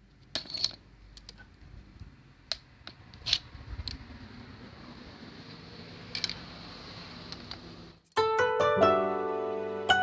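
A few sharp clicks and light taps over a low steady hiss, from parts and tools being handled during work on a scooter's front fork. About eight seconds in, loud plucked, harp-like background music starts.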